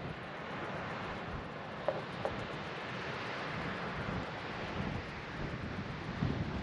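Wind rumbling on the microphone over the steady hiss of surf, which swells in the middle. Two short faint high notes come about two seconds in.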